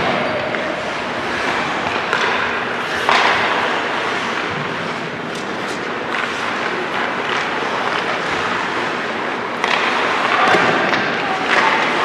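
Ice hockey play on a rink: skates scraping on the ice under a steady rink noise, with a few sharp knocks of puck and sticks against the boards.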